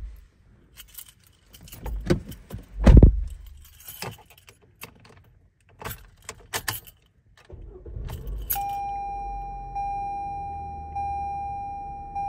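Keys jangling with a few knocks, then the 2022 Toyota RAV4's 2.5-litre four-cylinder engine starts about two-thirds of the way in and settles to an idle. Once the engine is running, a dashboard warning chime repeats about once a second.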